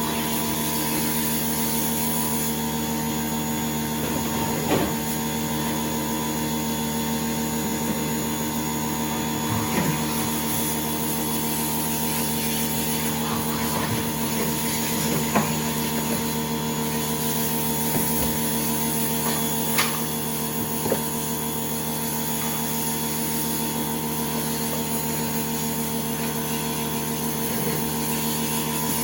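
A steady machine hum with several fixed tones throughout, broken by occasional short knocks and clicks of parts and tools being handled.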